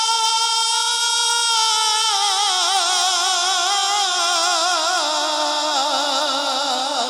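A male qari's amplified Quran recitation, holding the end of "ʿallamahul-bayān" in one long melodic phrase. The note is steady at first, then wavers in quick ornaments and steps down in pitch several times.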